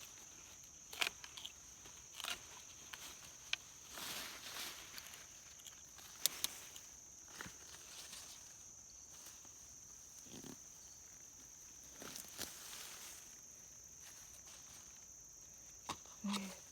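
Garden pitchfork digging in soil: scattered short scrapes, crunches and knocks as the bed is worked for sweet potatoes. A steady high-pitched insect drone goes on underneath.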